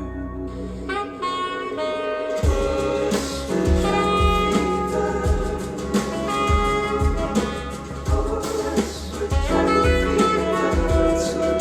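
Recorded jazz-tinged music played through Morel Sopran 934 hi-fi loudspeakers and picked up in the room. A held low note gives way, about two and a half seconds in, to a bass and drum groove with a steady beat.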